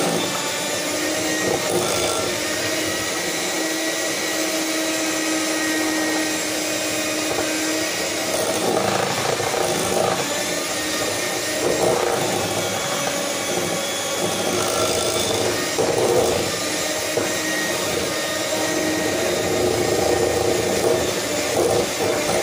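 Electric hand mixer running steadily, its beaters whirring through eggs and sugar in a glass measuring cup. The mixture is being beaten until it turns pale and thick and the sugar no longer feels grainy.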